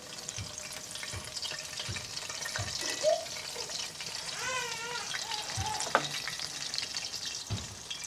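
Batter-coated bread deep-frying in hot oil in a cast iron skillet: a steady sizzle with fine crackling, and a single sharp click about six seconds in.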